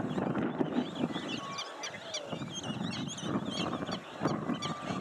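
Many wild birds chirping and calling together, short quick calls overlapping, over a low, rough, steady rumble.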